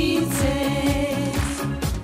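Women's vocal trio singing a pop song over music with a steady beat; a voice holds a long note at the start.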